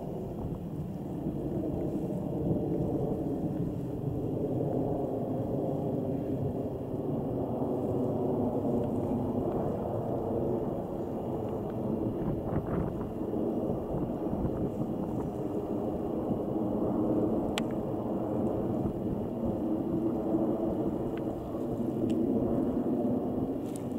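Korean Air Boeing 777-300ER's GE90 jet engines rumbling steadily as the airliner passes overhead, with a faint drone of steady tones running through the roar.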